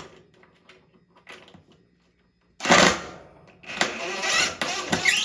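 Loud mechanical noise while a ceiling-fan mounting bracket is being fitted: a sharp click at the start, a short loud burst about two and a half seconds in, then a longer noisy run of about a second and a half near the end.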